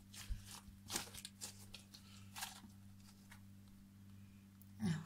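Soft, scattered sticky clicks and squishes of a shaving-foam slime being stretched and handled by hand, over a steady low hum.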